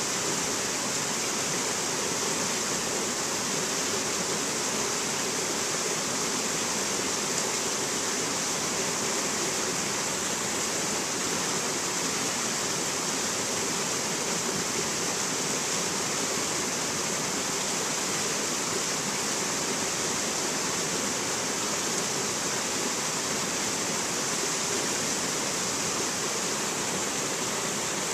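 Rocky mountain stream cascading over boulders: a steady, unbroken rush of water.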